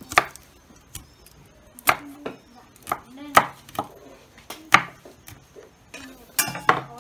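Kitchen knife chopping garlic cloves on a wooden chopping board: irregular sharp knocks of the blade striking the board, a dozen or so, with a quick cluster near the end.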